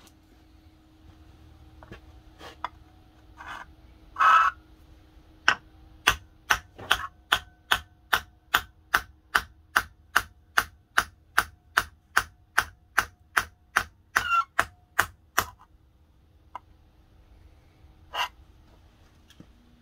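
Steel knife blade, forged from a truck leaf spring and clamped in a bench vise between wooden blocks, struck in a long, even run of sharp metallic taps about three a second, with a faint ring. A few scattered knocks come first, and the run stops suddenly.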